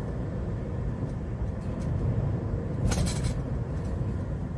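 Cab noise of a Hyundai Porter II truck on the move: a steady low engine and road rumble, with a short burst of noise about three seconds in.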